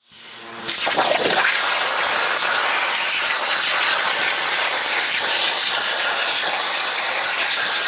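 CNC plasma cutter torch cutting, a loud, steady hiss of the arc and air that starts abruptly less than a second in.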